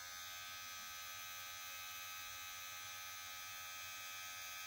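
Cordless hair clipper motor running at a steady speed with its blade lever open, an even electric hum of several steady tones at about 5,500 RPM.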